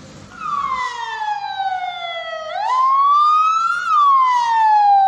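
Patrol vehicle siren wailing, starting about half a second in. Its pitch slides slowly down, jumps back up and climbs, then slides down again.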